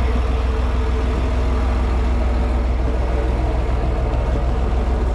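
Diesel railcar's engine running with a steady low drone and a steady hum above it.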